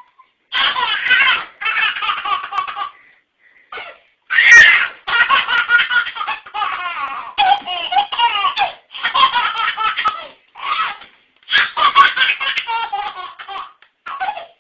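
A baby laughing hard in repeated bursts of belly laughter, broken by short pauses for breath.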